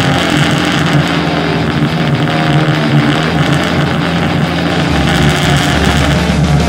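A race car's engine running at idle, a steady hum, with a deeper low throb coming in about five seconds in.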